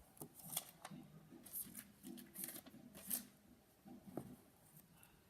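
Faint rustling and sliding of trading cards being handled, a handful of short soft swishes over the first three seconds or so.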